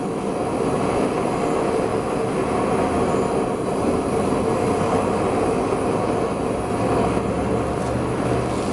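A forge running with a steady, even roar while a cable Damascus knife blade is heated to non-magnetic for hardening.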